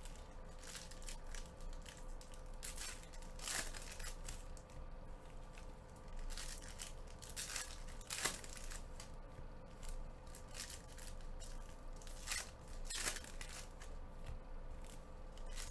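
Foil trading-card packs being torn open and crinkled by gloved hands: irregular sharp crackling and ripping, with a few louder rips spread through, over a faint steady hum.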